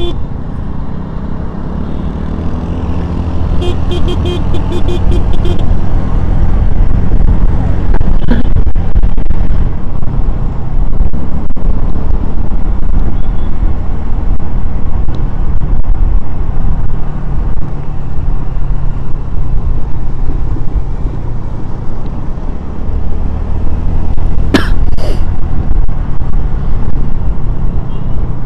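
Steady low rumble of a road vehicle under way. About four seconds in there is a quick run of short beeps, and near the end a sharp knock.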